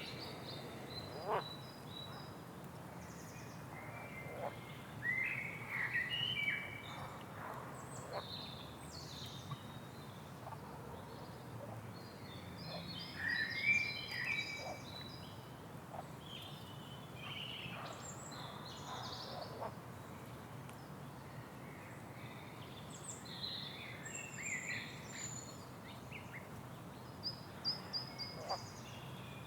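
Swamp ambience: many birds chirping and calling over a steady low background noise, with a few short clicks or croaks that may be frogs.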